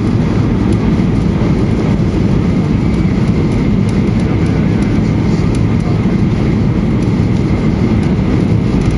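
Steady cabin noise inside a Boeing 737-800 on approach with flaps extended: the rush of airflow and the CFM56 engines, heaviest in the deep range, with a faint steady high whine.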